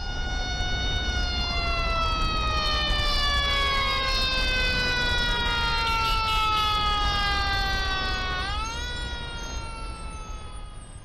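Fire engine siren wailing over a low rumble. Its single tone slides slowly down in pitch for about eight seconds, then swoops back up, and the whole sound fades in and out.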